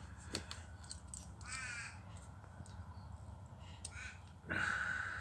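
Crows cawing twice: a short harsh call about a second and a half in, and a longer one near the end. A few light clicks sound in between.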